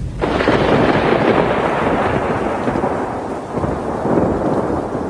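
Thunderclap: a sudden loud crack just after the start, then a rolling rumble that dies away slowly and swells again about four seconds in.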